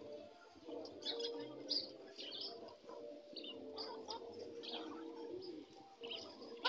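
Flock of caged brown laying hens calling: drawn-out low calls with short high chirps coming on and off.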